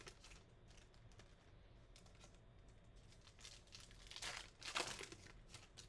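Faint crinkling of a trading-card pack's wrapper and cards being handled, heard as a few brief rustles, the loudest about four seconds in.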